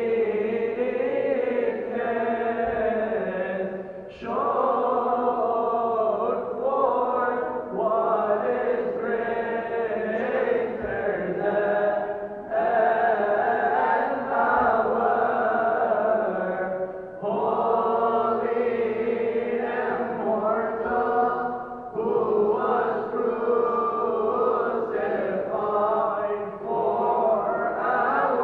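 Choir of Coptic deacons chanting a hymn together, in long sung phrases separated by brief breaks every few seconds.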